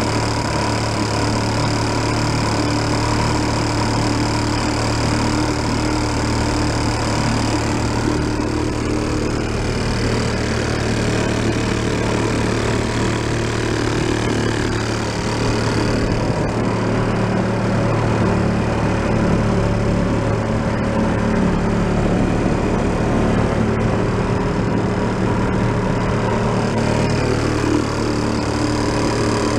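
1937 Sears Waterwitch 2.5 hp two-stroke outboard motor running steadily under way, driving the boat under load.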